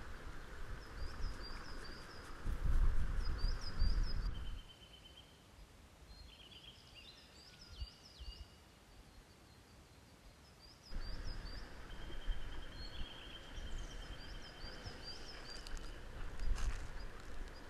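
Small birds chirping in short repeated phrases, with a higher trill now and then, over a low rumble of wind on the microphone. The rumble is loudest about three to four seconds in, cuts off suddenly, then comes back just past the middle.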